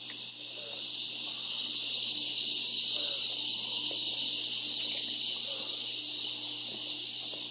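Steady, high-pitched buzzing insect chorus that swells over the first couple of seconds and then holds.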